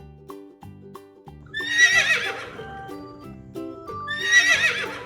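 Horse whinnying twice, each a shaky, wavering call of about a second that falls in pitch at the end, over light children's background music.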